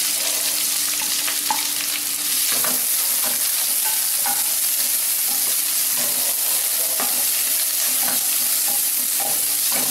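Sliced onions, green chillies and curry leaves sizzling in hot oil in a nonstick pan, stirred with a spatula. A steady frying hiss with scattered clicks and scrapes from the spatula.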